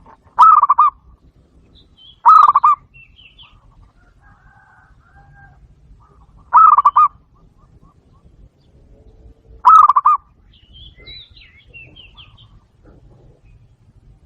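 Zebra dove calling: four short, loud trilled coos, each about half a second long, spaced a few seconds apart. Faint high chirps from other small birds come between them.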